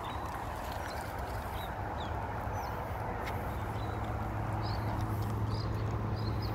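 Bike tyres and two dogs' paws crunching along a gravel path: a steady gritty rustle with a footstep-like patter that slowly grows louder.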